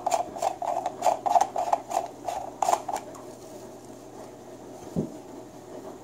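Clear plastic lens dome of an LED anchor light being twisted off its black base, its threads clicking about four times a second until about three seconds in. A single soft knock follows about five seconds in.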